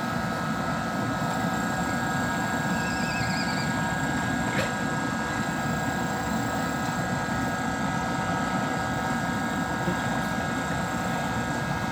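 Steady machine drone with several constant tones underneath, and a short high warble about three seconds in.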